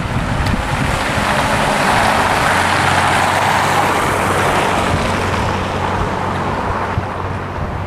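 A car driving past on the street: tyre and road noise swells over a few seconds and then fades, with a low engine hum underneath.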